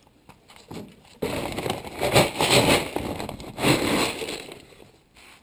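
Dry floating fish-food pellets being scooped out of a feed bag with a plastic container, the pellets pouring and rattling with a rain-like patter. It starts suddenly about a second in and dies away near the end.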